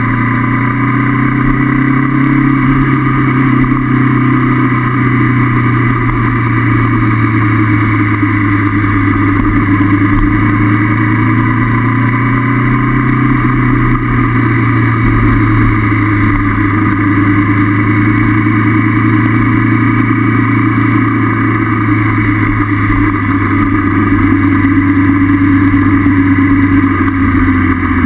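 Honda CB500F's parallel-twin engine running steadily while riding, its pitch drifting slowly up and down with the throttle.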